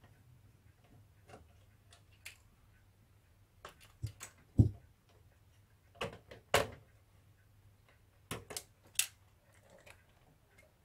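Handling noise: scattered light clicks and knocks, about nine in all, the loudest a dull knock about four and a half seconds in, over a faint low steady hum.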